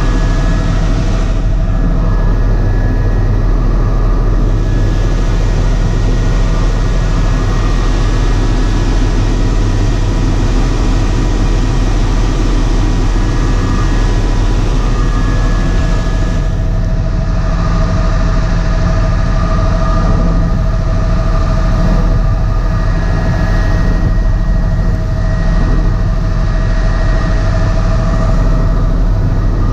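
Helicopter engine and rotor noise heard from inside the cabin in flight: a loud, steady drone with a faint steady whine above it.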